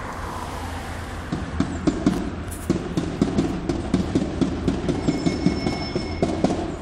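Marching protest crowd with rhythmic percussion: sharp beats, several a second, start about a second in and run on over a steady low street hum.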